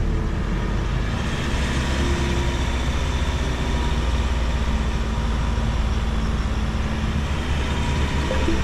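Motor vehicle driving, a steady low rumble of engine and road noise with a hiss over it.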